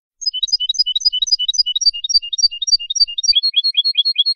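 European goldfinch singing one phrase of Malagueño-style song: quick, clear twittering notes, ending in a faster run of falling notes over a held high tone, with a sudden start and stop.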